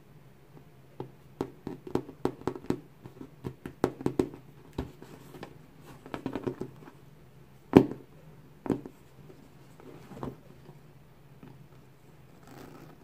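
Hands handling a Louis Vuitton Speedy 25 bag in Damier Ebene coated canvas: fingers tapping, pressing and rubbing the canvas and leather handles in a string of light taps and rustles, with one sharper knock about eight seconds in.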